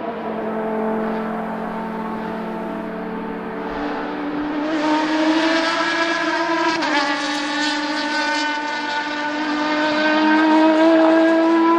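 Lucchini P207 prototype's 3.0-litre naturally aspirated BMW straight-six accelerating past at full throttle. Its note gets louder as the car approaches, drops sharply about seven seconds in, then climbs steadily as the car pulls away.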